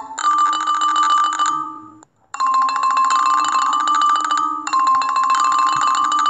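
Xylophone-like mallet-percussion tune from a children's storybook app, played in short phrases of quick repeated notes. A brief silent break falls a little after two seconds in.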